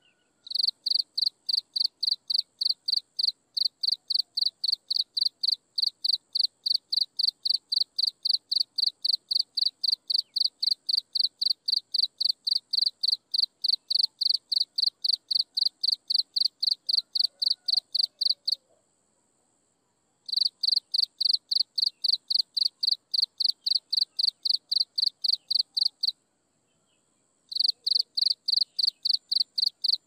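An insect chirping in a fast, even rhythm of about four chirps a second, the loudest sound throughout. It stops about 18 seconds in and again near 26 seconds, each time for a second or two, then starts again. A faint, steady high whine runs underneath.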